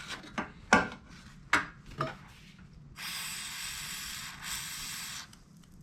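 A few light clicks and knocks of tools being handled, then a hand torch's gas flame hissing steadily for a little over two seconds, heating seized exhaust manifold studs to free them.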